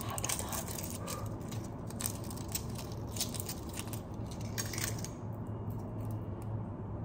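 Hard-boiled eggshells crackling and clicking as the eggs are cracked and peeled by hand, in many short, irregular bits, over a steady low hum.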